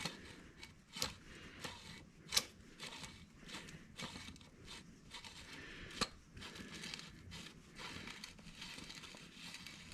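Faint hand-work noises: a few light, sharp metal clicks and scraping as a steering tie rod end is turned by hand on its threads, feeling for where the thread catches.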